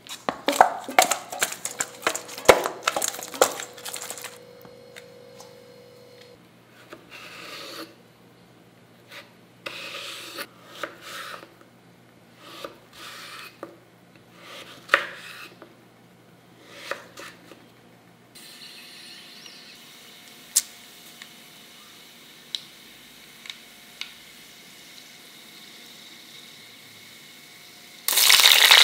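Clattering in a steel bowl as fish pieces are mixed with spices. This is followed by a knife cutting raw mango on a wooden chopping board, with separate knocks spaced out over about ten seconds. Near the end, green chillies go into hot oil and a loud sizzle sets in suddenly.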